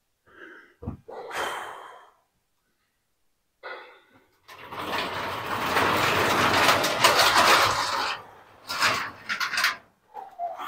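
Sectional overhead garage door rolling shut along its tracks, a steady rumbling rattle for about three and a half seconds in the middle. Before it come a sharp knock and some faint shuffling, and after it a few short knocks and clatters.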